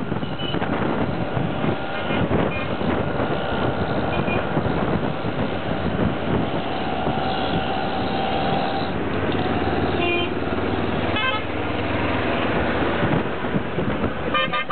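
Ride inside a moving auto-rickshaw: its small engine running under a steady haze of road and wind noise, with short horn toots from the traffic now and then.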